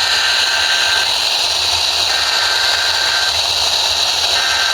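Radio receiver static: a steady, loud hiss. A faint high beep about a second long sounds through it three times, roughly every two seconds.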